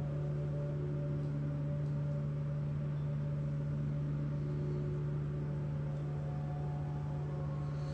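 A steady low hum with fainter steady tones above it. It holds unchanged and never rises or falls.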